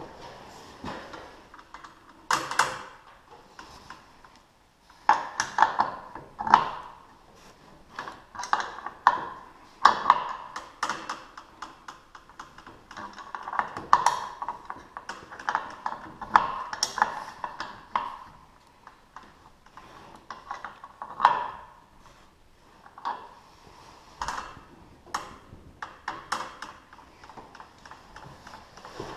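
Irregular metallic clinks and knocks with a short ring, as hand tools and the loose drive chain and rail of a garage door opener are handled. The loudest strikes come in clusters a few seconds apart.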